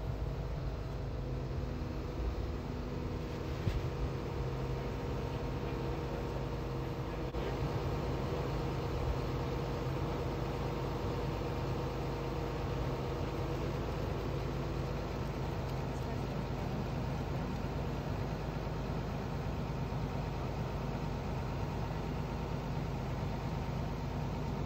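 Crane's engine running at a steady speed: a low, even hum with a faint steady whine above it.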